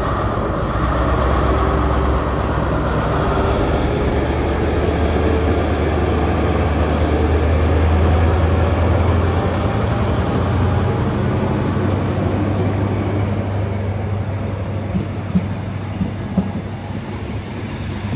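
A train running past close by: a steady low engine rumble over rail noise, with a few sharp wheel clicks over rail joints near the end.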